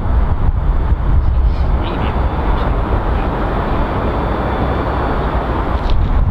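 Bulleid Merchant Navy class steam locomotive 35028 Clan Line approaching at speed, its three-cylinder exhaust beats running together into a continuous rush, over a heavy low rumble.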